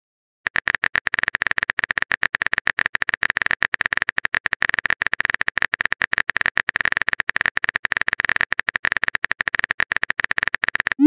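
Texting-app keyboard typing sound effect: a rapid, unbroken run of small tapping clicks as a long message is typed, starting about half a second in.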